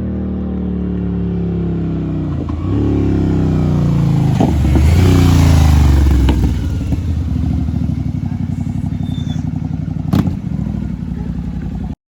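Royal Enfield GT 650's parallel-twin engine running through Offtrail Moto Hyperstroke S1 Pro slip-on exhausts with no dB killers fitted. The engine note rises and falls several times and is loudest about five seconds in. A single sharp pop comes about ten seconds in.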